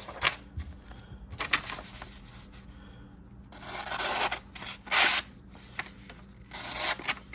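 Folding pocket knife's stainless blade cutting through a material in about five separate noisy strokes, the longest about four seconds in.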